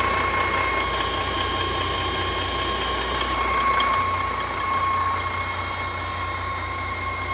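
Detroit Diesel DD16 15.6-litre inline-six diesel engine idling steadily on a run stand, with a steady high whine over the low rumble.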